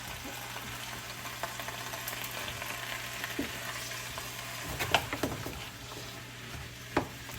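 Vegetables sizzling steadily in a crowded wok over high heat, with a few sharp knocks of the stirring utensil against the wok about five and seven seconds in.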